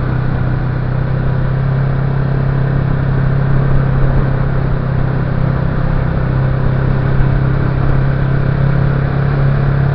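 Motorcycle engine running at a steady cruising speed, with a constant hum, heard from the moving bike along with rushing wind and road noise.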